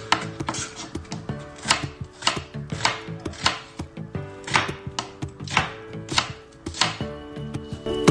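Chef's knife chopping on a plastic cutting board, sharp strikes coming about once or twice a second, with quiet background music underneath that swells near the end.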